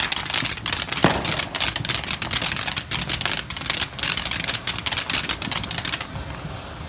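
Ground firework fountain crackling: a dense, rapid run of sharp pops and spark crackle that stops abruptly about six seconds in as it burns out.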